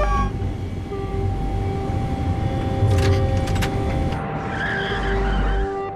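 Dramatized vehicle noise on an airport runway: engine rumble with a tire screech near the end, over a steady sustained tone.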